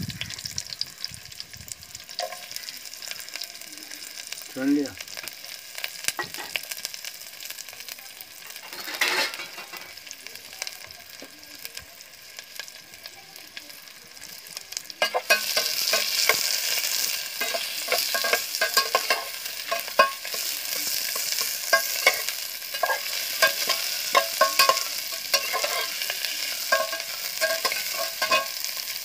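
Sliced onions, green chillies and garlic sizzling in hot oil in an aluminium saucepan. About halfway through the sizzling grows louder, and a metal spatula scrapes and clicks against the pan as the mixture is stirred.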